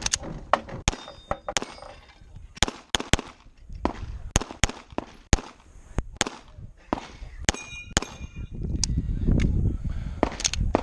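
A stage string of pistol shots, singly and in quick pairs, spaced from a fraction of a second to about a second apart. After some shots comes a brief metallic ringing, most clearly near eight seconds in, as steel targets are hit.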